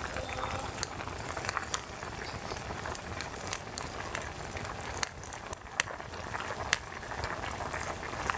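Pot of ramen boiling over a campfire: a steady bubbling hiss with many irregular crackling pops.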